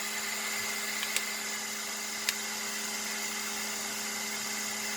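Creality K2 Plus 3D printer running mid-print: a steady whir of its fans and motors, with a couple of faint clicks.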